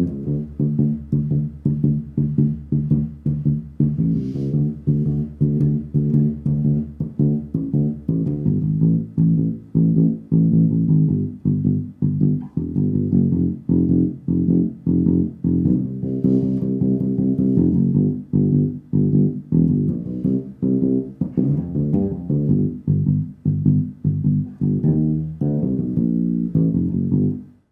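Electric bass guitar played alone, plucked with the fingers: a steady run of low notes in an even rhythm, stopping abruptly near the end.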